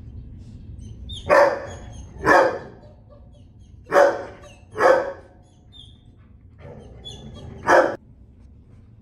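A dog barking five times in short single barks, at uneven intervals, over a low steady background hum.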